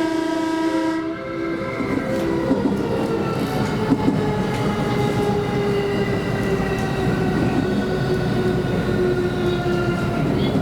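Electric train heard from inside the carriage: a held steady horn-like tone ends about a second in, then the traction motors' whine falls slowly in pitch over the running noise as the train slows down for a safety check.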